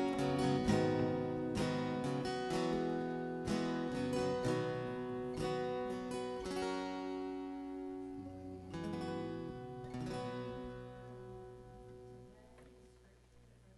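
Acoustic guitar strumming chords in instrumental music, the strums thinning out as it gets steadily quieter and dies away near the end.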